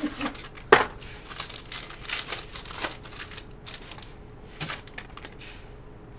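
Trading-card packaging and cards being handled: crinkling and rustling with scattered sharp clicks, the loudest a snap just under a second in. The handling dies away near the end.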